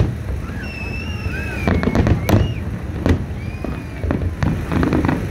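Aerial fireworks shells bursting in a string of sharp bangs, the loudest just after two seconds in, with a few high, wavering whistling tones between the bursts.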